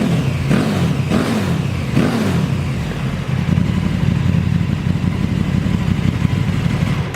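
KTM 1290 Super Duke R's 1301 cc 75° V-twin through an Akrapovic exhaust, revved in three quick throttle blips, then running steadily until it cuts off at the end.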